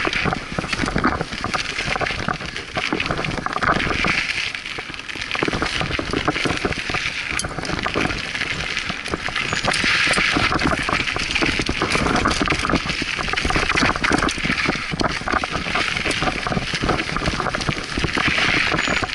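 Scott Aspect 35 mountain bike ridden fast down a dirt singletrack: knobby tyres crunching and skittering over dirt, roots and loose stones, with the bike rattling over the bumps.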